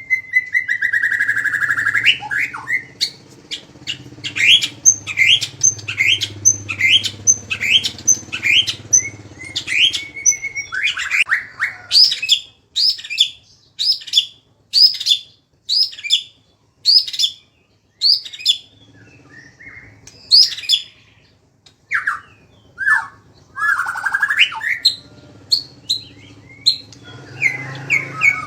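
A songbird singing a rapid series of sharp, repeated high notes, about two a second, broken by short pauses. This is the fast 'tembakan' phrasing that bird keepers use as masteran song. It opens with a held whistle, and near the end it thins to scattered single calls.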